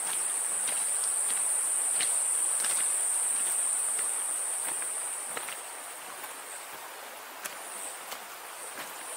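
A high-pitched insect drone holds steady for about six seconds, then falls away into short intermittent pulses. Scattered faint ticks and rustles sound underneath.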